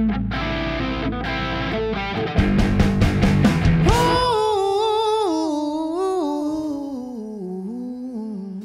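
Live rock band playing: electric bass, electric guitar and drums, with heavy accented hits about two seconds in. From about four seconds in the band drops away, leaving a single held melodic line that wavers and slides gradually down in pitch.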